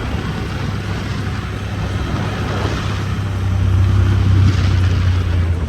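A motor vehicle engine running as a steady low drone that grows louder past the middle and eases near the end.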